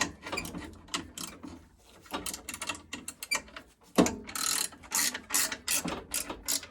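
Socket ratchet clicking in quick runs of clicks as it is worked back and forth, with the runs coming thicker in the second half.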